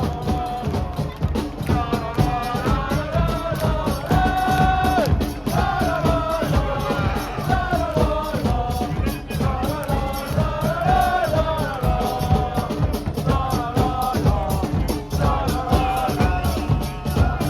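Football supporters singing a chant together, with a drum beating steadily under the song.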